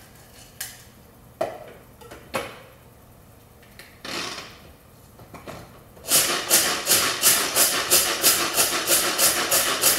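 Hand-operated manual food processor chopping pine nuts and roasted edamame. A few clicks and knocks come first as it is handled. About six seconds in, a loud, even rattle of the blades and nuts starts at roughly three strokes a second.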